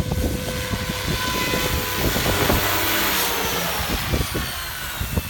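Goblin 700 Havok electric RC helicopter flying: a whine from the motor and rotors that slowly falls in pitch, with a swell of rotor hiss around the middle. Heavy wind buffets the microphone throughout.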